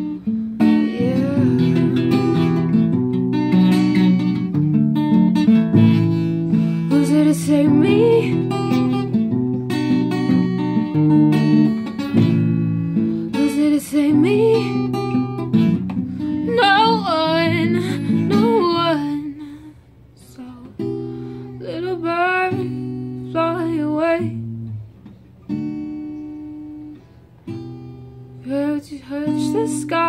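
Acoustic guitar playing a slow instrumental passage of a ballad, with a singing voice coming in over parts of it, most clearly in a wavering held line a little past halfway. About twenty seconds in the guitar thins out and gets quieter.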